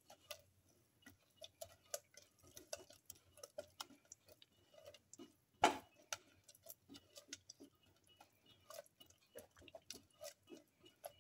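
Spatula stirring a thick, wet paste in a metal pot: faint, irregular clicks and soft scrapes, with one louder knock a little over halfway through.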